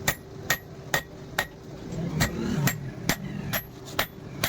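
Hammer blows on steel from an old truck leaf spring being forged into a spear head on an anvil. The blows fall at a steady pace of about two a second, each with a short metallic ring, and pause for about a second around the middle.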